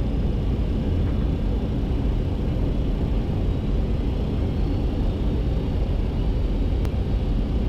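Steady flight-deck noise of a Boeing 737-200 on approach: an even low rumble with rushing air, from its JT8D engines and the airflow over the lowered landing gear and flaps.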